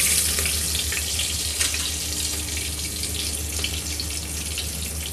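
Cumin seeds, green chillies and curry leaves sizzling in hot oil in an aluminium pressure cooker: a steady frying hiss dotted with small crackles, over a low steady hum.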